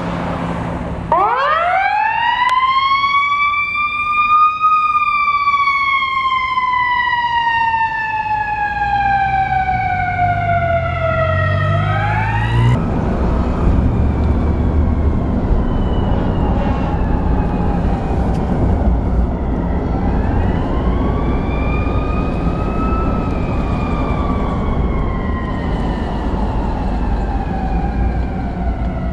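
Fire engine siren winding up to a high wail about a second in, then slowly falling in pitch and starting to rise again before an abrupt cut. After the cut a steady low rumble takes over, and the siren is heard more faintly, rising again near the middle and falling toward the end.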